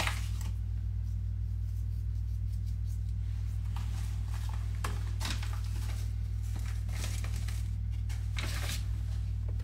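Crinkling of a small plastic herb packet being handled and shaken over meat, in several short rustles in the second half, over a steady low hum.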